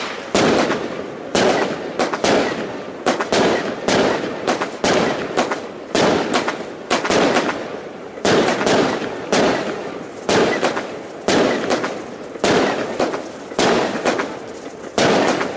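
Aerial fireworks bursting overhead in a rapid, unbroken barrage of bangs, about one to two a second. Each bang trails off in a short rumbling echo before the next.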